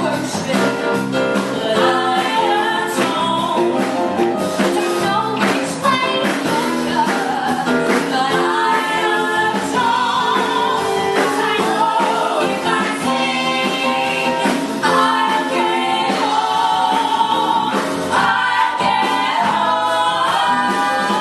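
Several women singing a gospel-style song live in harmony through microphones, a lead voice over backing voices, with piano and drum accompaniment.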